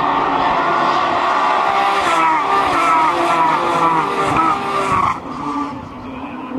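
A pack of Renault Mégane Trophy race cars with 3.5-litre V6 engines going past at racing speed, several engines overlapping with their pitch rising and falling. The sound drops off suddenly about five seconds in, leaving a fainter engine.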